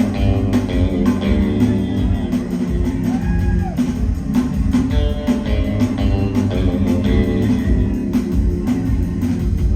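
Live rock band playing an instrumental passage without singing: electric guitar over bass and drums, loud and steady.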